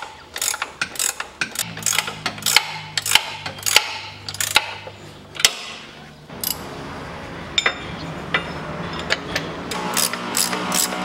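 Ratchet wrench clicking in quick strokes as it turns the bolt of a home-made puller, pressing the old bushing out of a Peugeot 407's lower engine mount. The clicking thins out in the middle, a steady low hum comes in, and the clicks pick up again near the end.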